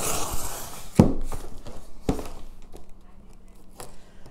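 Cardboard shipping box being opened by hand: packing tape slit and torn and the box handled, with two sharp knocks about one and two seconds in, then quieter rustling.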